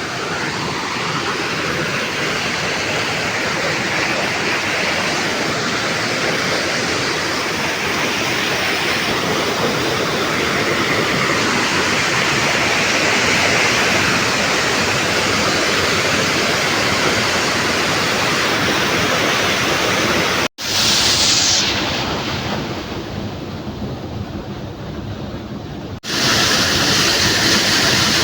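Waterfall rushing: a steady, loud wash of falling water. About twenty seconds in it cuts off abruptly and returns duller for a few seconds, then comes back full again.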